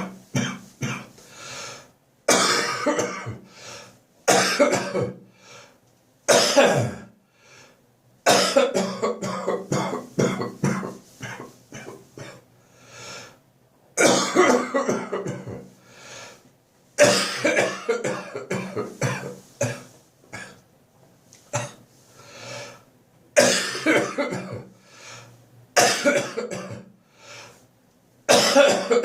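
Chesty bronchitis cough: repeated bouts of several coughs in quick succession, a new bout starting every few seconds.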